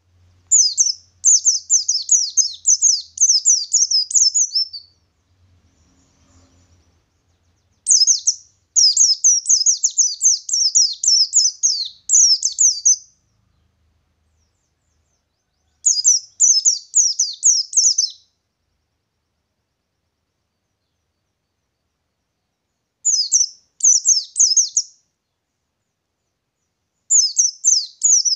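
Pleci ngalas white-eye singing its rolling song: fast runs of high, rapid chirping notes, five bursts of two to five seconds each with short pauses between them.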